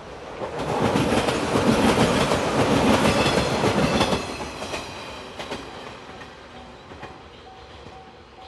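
JR 115-series electric train passing close by, its wheels clicking rhythmically over the rail joints, loudest for about four seconds and then fading away. The level-crossing warning bell rings in a steady on-off pattern beneath it and is heard again as the train recedes.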